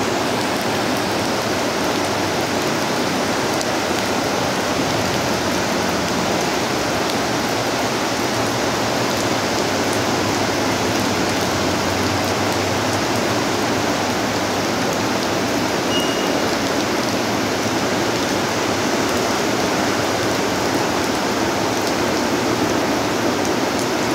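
Floodwater of an overflowing creek rushing past in a steady, unbroken roar of water.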